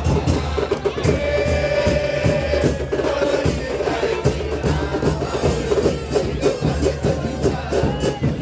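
A crowd of football supporters chanting together over a steady beat of drums and rattling percussion.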